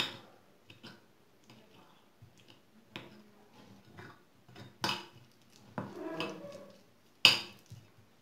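Spoon clinking and scraping against a bowl while stirring a thick noodle batter: several separate sharp clinks, the loudest near the end, with a stretch of wetter scraping between them.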